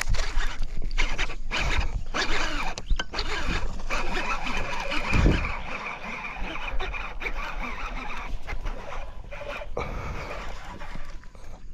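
Baitcasting reel whirring as it spins, mixed with the rubbing and knocking of the rod and gloved hands against the camera, and a heavy thump about five seconds in.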